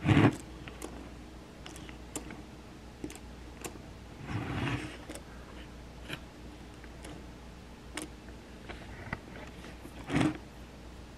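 Handling noise from a small metal model railway truck being moved and turned on a wooden workbench: faint clicks and light knocks, with a louder knock right at the start, a duller bump about four and a half seconds in and another knock near the end.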